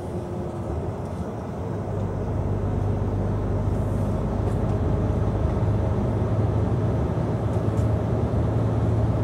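Truck's diesel engine running with road noise inside the cab, a steady low drone that grows louder about two seconds in and then holds.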